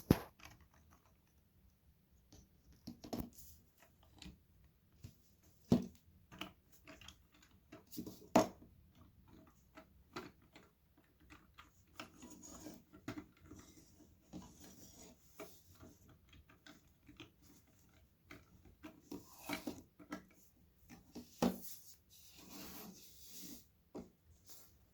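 Lego puzzle pieces being pulled apart and set down: irregular plastic clicks and knocks, with stretches of pieces rubbing and sliding against each other.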